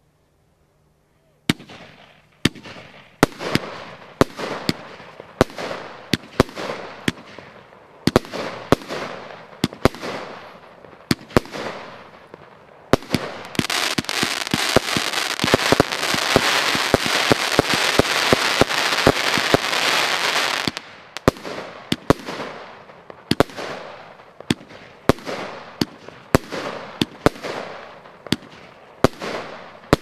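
Lesli Bulldozer firework cake firing. After a second or so of quiet comes a string of sharp bangs, roughly one every half second to second, each trailing off in crackle. Near the middle a dense, continuous crackling fills in for about seven seconds, then the separate bangs resume.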